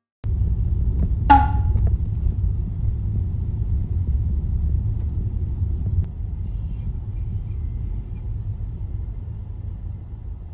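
A steady low rumble begins suddenly just after the start and continues, easing slightly toward the end. A short, high squeak-like sound comes about a second in.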